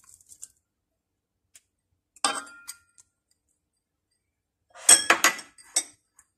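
Kitchenware clinking against a pan as chopped ham is tipped into the salad mix. One clink with a short ring comes about two seconds in, then a quick cluster of clinks near the end and one more just after.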